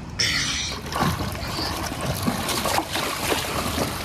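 Pool water splashing and sloshing as a child thrashes and kicks through it, with a sharp splash just after the start.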